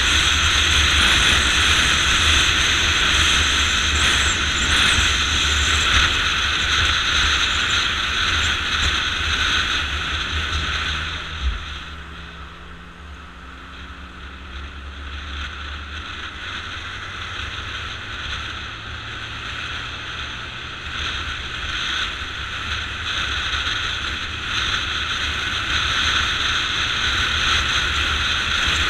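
Wind rushing over the microphone of an action camera on a moving motorcycle, with the engine underneath. About a third of the way in it drops off for some ten seconds as the bike slows behind cars, and a faint engine hum shows through. Then it builds again as the bike picks up speed.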